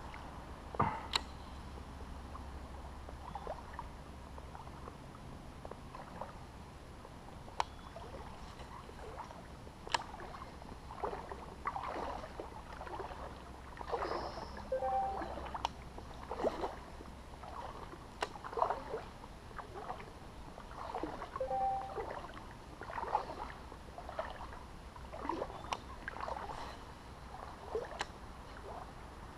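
Soft, uneven splashes and drips of water around a small paddled craft moving slowly along a creek, coming roughly once a second in the second half, over a faint low rumble.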